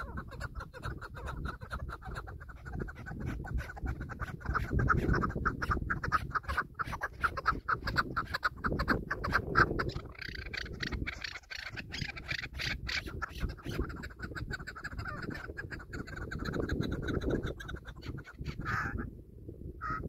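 Chukar partridges calling: a long, fast run of repeated clucking notes over a low wind rumble on the microphone.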